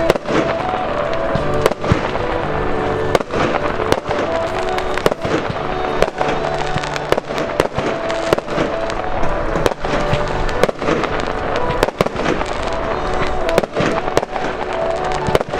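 Fireworks display: rocket shells bursting in an irregular string of sharp bangs, roughly one a second, amid continuous crackle. Music with sustained, changing melody notes plays underneath.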